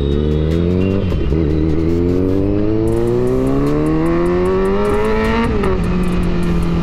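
Kawasaki Z900's inline-four engine pulling hard, its pitch rising steadily for about four seconds after a brief dip about a second in. The pitch drops near the end and then holds steady.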